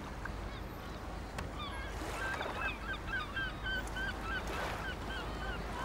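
A flock of birds calling with short honk-like calls, several a second, beginning about a second and a half in, over a steady low rumble of waterside ambience.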